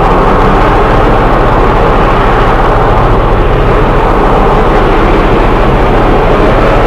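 Train running steadily: a loud, continuous vehicle noise that holds the same level throughout, with no horn or clear clicks.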